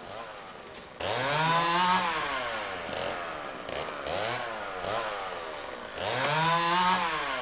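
Power tool motor revving up and down over and over, as when cutting a hedge. It cuts in suddenly about a second in and is loudest just after it starts and again near the end.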